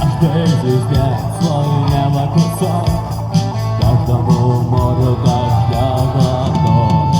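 Music: a guitar-led rock song playing an instrumental passage with no lead vocal.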